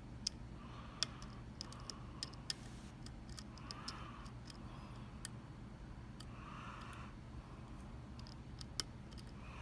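Sharp, irregular small metal clicks of a lock pick working the pins inside a Mul-T-Lock MT5 cylinder.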